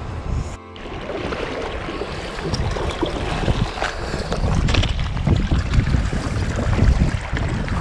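Stream water rushing and sloshing around wading legs, with wind buffeting the microphone. It cuts out briefly about half a second in, then grows louder with irregular low splashes.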